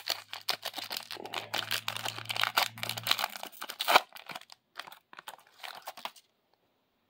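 Foil trading-card pack wrapper crinkling and tearing as it is ripped open by hand, with a sharp crackle about four seconds in. The crinkling stops abruptly about six seconds in.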